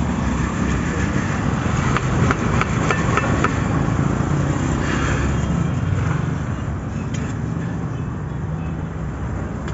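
Roasted beans rattling in a wooden sieve box as the sand is shaken out through its mesh, a quick run of clicks about two seconds in, over a steady low rumble.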